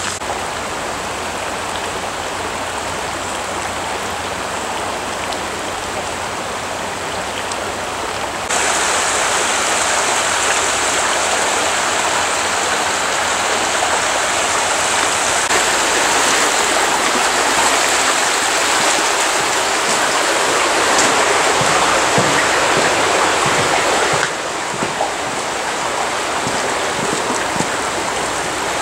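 Rushing water of Cataract Falls and its mountain creek, a steady noise that turns abruptly louder about a third of the way in and drops back just as abruptly about two-thirds in.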